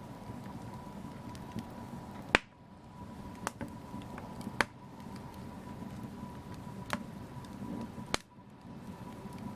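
Wood fire in a fireplace crackling: a steady low hiss and rumble with sharp pops, the two loudest about two and a half and four and a half seconds in, and smaller ones scattered through.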